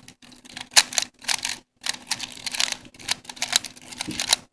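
Plastic 3x3x4 Rubik's cuboid being turned quickly by hand, its layers clicking and clacking in rapid runs broken by short pauses.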